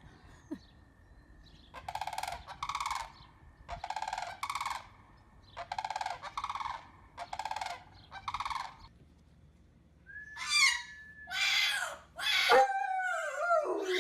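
A domestic fowl giving a run of harsh, rasping honks, about half a second each and mostly in pairs. Near the end, after an abrupt change, a dog howls in wavering, falling tones.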